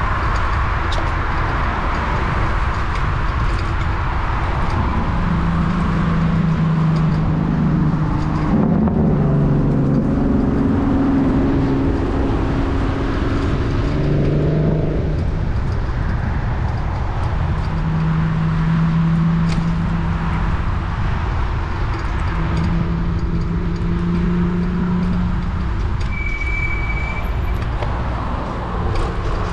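Road traffic heard from a moving bicycle: a steady low rumble of wind and road noise, with motor vehicles passing and engine hums coming and going, the loudest between about 5 and 15 seconds in. A brief high tone sounds near the end.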